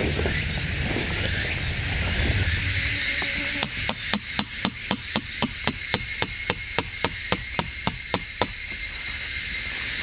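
Hammer driving a metal tarp peg into the ground: a quick run of about twenty strikes, about four a second, each with a short metallic ring. The strikes start about three and a half seconds in, grow slightly quieter, and stop a little past the eighth second.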